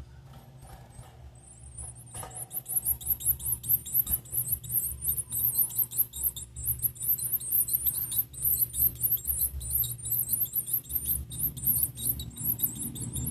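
Blue-black grassquit nestlings giving rapid, very high-pitched begging calls, a few faint ones at first, then a dense, continuous chorus from about two seconds in.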